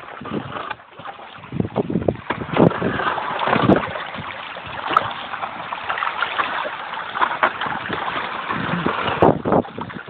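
Wind buffeting the microphone in gusts over a steady hiss of small waves washing onto the beach.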